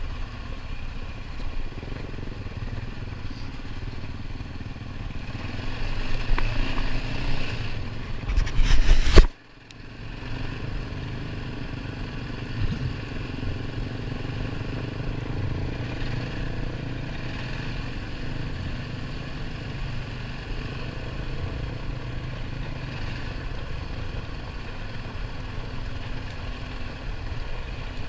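ATV engine running steadily on a dirt trail, with rattling and scraping. About eight seconds in, a loud rush of noise builds and then cuts off abruptly, after which the engine sound carries on.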